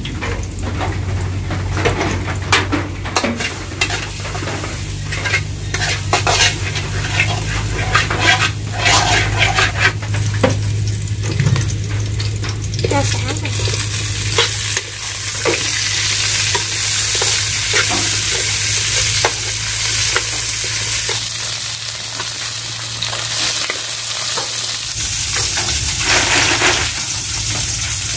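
Chopped lemongrass sizzling as it is stir-fried in a metal wok on a gas stove, a metal spatula scraping and clicking against the pan. About halfway through the frying settles into a steady, louder hiss.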